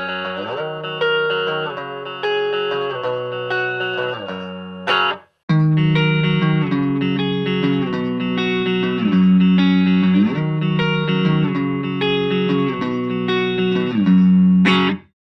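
Electric guitar played through a mini practice amp, a chord riff with ringing notes. It plays through twice, cut off by a brief silence about five seconds in and again near the end, and each pass ends with a short noisy scrape up the strings.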